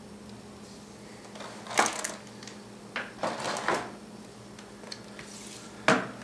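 Packaging being handled during an unboxing: short rustles and knocks of box parts and contents, in a few bursts about two, three to four, and six seconds in.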